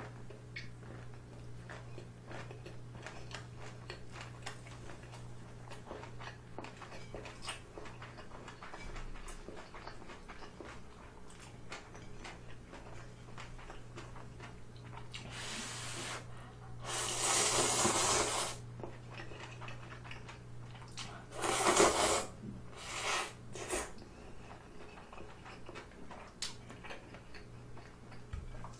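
Close-miked mukbang eating: soft wet chewing clicks of kimbap, then, past the middle, several loud slurps of instant ramen noodles, the longest lasting over a second. A steady low electrical hum runs underneath.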